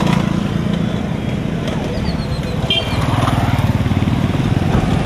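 Motorcycle engine running as it rides past close by.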